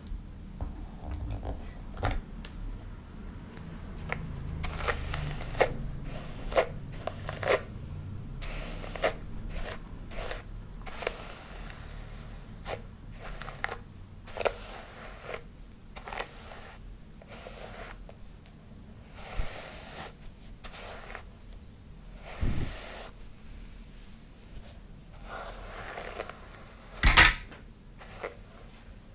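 Close-miked hair being combed and massaged: irregular soft brushing and rustling strokes through the hair, with one sharper knock near the end.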